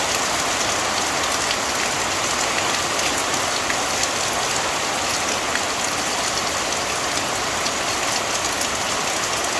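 Steady, fairly loud rainfall, a dense even patter of raindrops with many small drop ticks.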